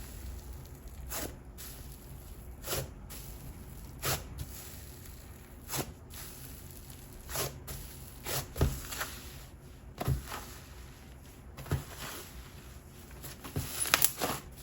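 Fluffy slime (MOMO Sakura Cold Foam) being squished and folded by hand: soft squelches every one to two seconds, turning into a quick run of crackling sizzle near the end as it is stretched.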